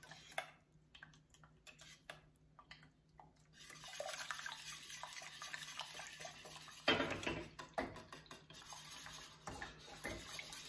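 Wire balloon whisk stirring a thickened lime pie filling in a stainless steel saucepan, its wires scraping and ticking against the metal pan. It starts sparse and gets busier about four seconds in, with one louder knock about seven seconds in.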